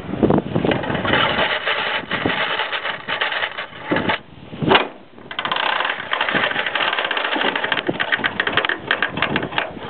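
Earll No. 8 trolleybus pole retriever's mechanism being worked as it is set into retrieve: rapid metallic clicking and rattling, with one sharp knock a little before the middle.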